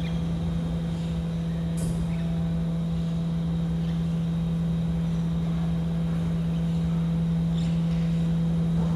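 Rubbish truck standing with its engine running: a loud, steady, even hum, with one short click about two seconds in.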